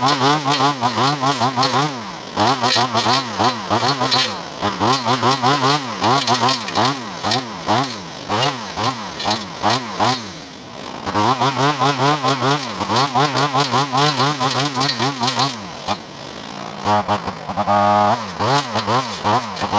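Cordless battery brush cutter with a brush blade cutting brush, its motor whine speeding up and dropping back over and over, about twice a second, with a couple of short pauses.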